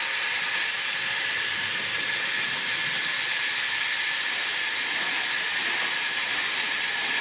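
Band sawmill running without cutting: a steady, even whir and hiss with a faint constant tone.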